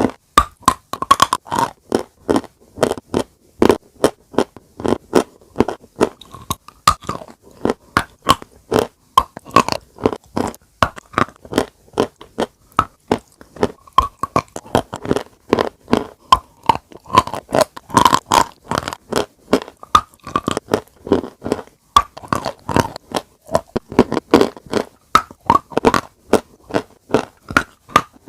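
Close-miked chalk being bitten and chewed: a continuous run of crisp, dry crunches, several a second.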